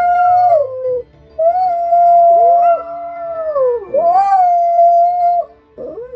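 Small terrier-type dog howling in three long, held notes. Each note stays on one pitch, then drops away at its end.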